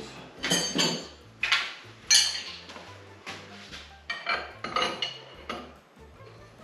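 Large steel wrenches clinking and clanking, as one is fetched and a second is set onto a threaded hydraulic fitting held in a bench vise. There are about seven sharp metallic knocks: a cluster in the first two seconds and more around four to five seconds in.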